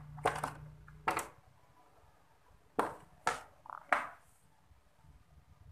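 About five sharp handling clicks and knocks, spread unevenly over the first four seconds, each with a brief ringing tail.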